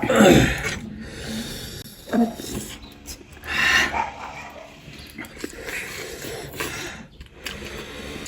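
Eating sounds with loud, noisy breathing and sniffing, and a short hissing breath about three and a half seconds in: typical of someone eating very spicy noodles.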